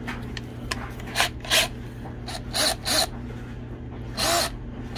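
Cordless drill with a wire wheel brush spun up in about five short trigger pulls, each briefly whirring up and winding down.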